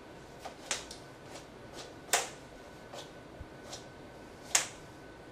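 Plastic hula hoops spinning in one hand, giving a series of sharp, irregular clacks as the hoops knock in the hand. The two loudest clacks come about two seconds in and near the end.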